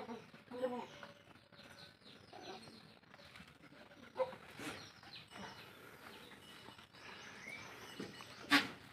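Birds chirping and calling in a farmyard, with a few short animal calls and a sharp knock near the end.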